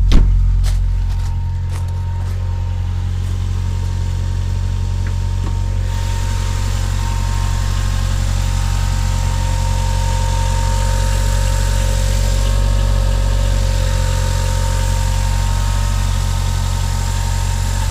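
Toyota Celica GT-Four ST205's 3S-GTE turbocharged four-cylinder idling, with a thin steady electric whine over the engine note; the whine sets in as soon as the throttle is blipped, which the owner doesn't think is meant to be there. The engine is a little louder right at the start, then settles to idle.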